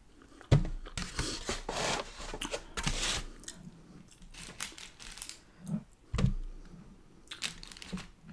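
Close-up crinkling and crunching from handling takeout chicken wings and their paper packaging, with a dull thump about half a second in and another about six seconds in.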